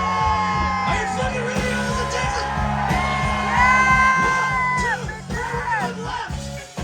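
Live band music with a steady low beat and long held melody notes, a little quieter after about five seconds.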